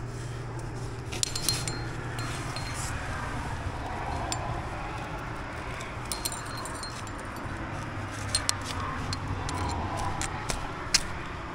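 Trad climbing rack jangling as the climber moves in the crack: aluminium carabiners and cams clinking together and against the rock, a series of sharp metallic clinks, some with a short ring.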